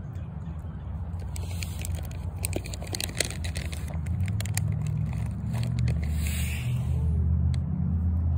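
Low, uneven rumble of wind and handling noise on a phone microphone, with scraping and crackling about one to four seconds in as a cat's fur brushes against the phone, and a short hiss a little after six seconds.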